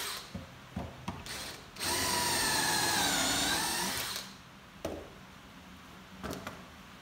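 Cordless drill boring pocket holes into pallet wood held in a Kreg pocket-hole jig. One run of the motor ends just after the start, and a second run of about two seconds follows, its pitch dipping as the bit bites into the wood. Two knocks come later, with the motor off.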